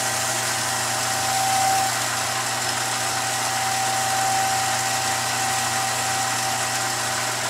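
Cue lathe running steadily with a pool cue shaft turning in it: a motor hum with a thin steady whine and a hiss, while a paper towel is held against the spinning shaft to wipe off a chalk-cleaning solution.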